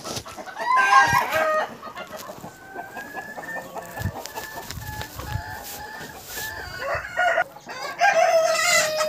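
Domestic chickens clucking, with a rooster crowing: a loud call about a second in and another near the end, and fainter calls between.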